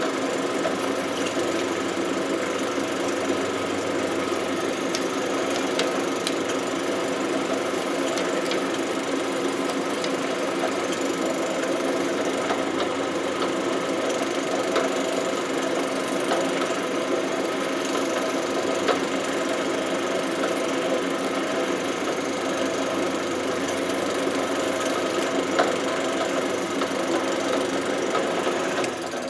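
Benchtop drill press running steadily with a small wire brush in the chuck, scrubbing the back of a steel socket: a constant motor hum with a scratchy brush sound and occasional light ticks. At the very end it is switched off and winds down.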